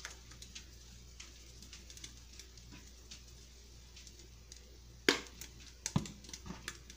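Faint ticking and light clicks of seasoning being shaken from a spice bottle over a pan of chicken, then a sharp knock about five seconds in and a duller thump a second later as the bottle is set down on the counter.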